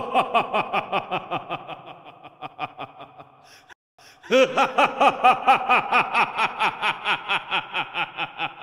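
A creature's voice cackling in a long run of quick, even laughs that fade away. After a brief pause a little under four seconds in, a second loud cackle starts and trails off.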